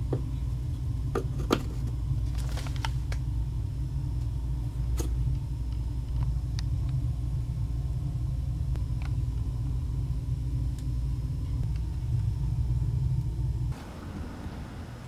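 A steady low rumble with a few scattered light clicks and knocks; the rumble cuts off suddenly near the end.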